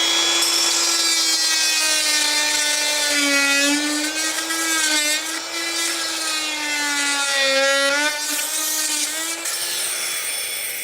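Harbor Freight oscillating multi-tool running and cutting into trim: a steady high buzz whose pitch sags twice as the blade bites under load, then winds down near the end.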